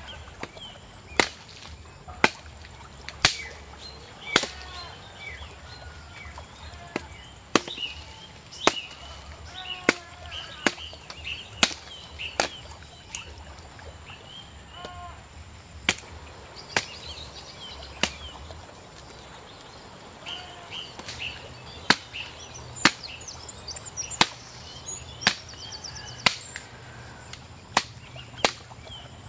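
A blade chopping into a wooden pole: about twenty sharp, clean strikes, roughly one a second, with a couple of short pauses. Birds chirp between the strikes.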